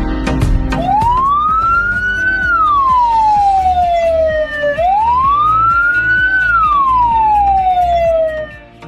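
Ambulance siren sounding a slow wail over background music. It makes two long cycles: each climbs from a low tone to a high one, then slides slowly back down, and the second starts right after the first. It begins about a second in and stops just before the end.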